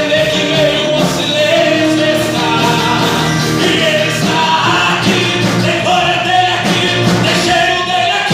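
Worship music: singing in long held notes over steady instrumental accompaniment.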